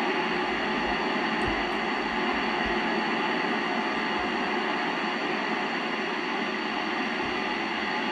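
Steady FM receiver hiss from a Yaesu FT-847 with its squelch open on the ISS crossband repeater's 70 cm downlink, with no signal coming through.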